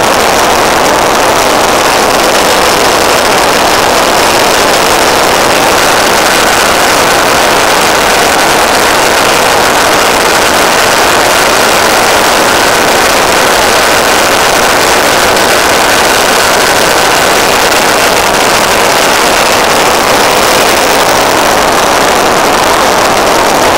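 Onboard audio of an EasyGlider RC motor glider in flight: a loud, steady rush of air and hiss with the electric motor and propeller running under power. A faint thin whine comes in about a quarter of the way through and fades out near three-quarters.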